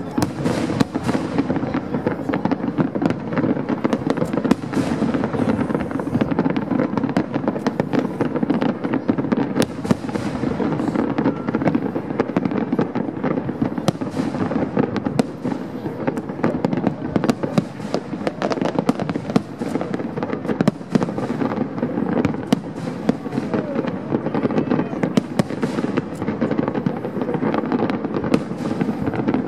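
Fireworks display: a dense, unbroken barrage of bangs and crackles, many bursts a second.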